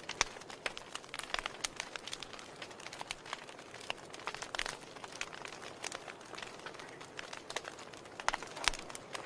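Wood fire in a fireplace crackling, with irregular sharp pops and snaps over a soft hiss of flames.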